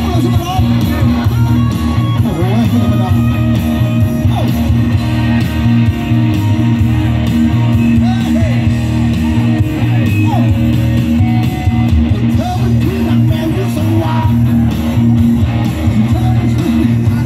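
Rock band playing live and loud, with electric guitar, a heavy bass and drum low end, and singing over it, heard from the crowd through a phone's microphone.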